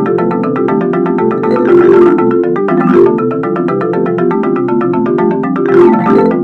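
Homemade ringtone-style tune played on marimba-like mallet tones: a fast, steady run of notes over a lower repeating line, with a few brief crash-like accents.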